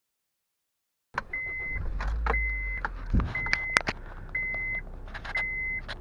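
Honda Fit's seatbelt reminder chime: a steady high beep, each about half a second long, repeating once a second. It starts about a second in, with a few clicks between beeps. It warns that the front passenger seat reads as occupied with the belt unbuckled.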